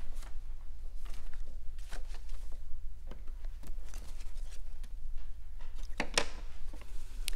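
Room tone: a steady low hum with scattered faint clicks and rustles, the most distinct about six seconds in.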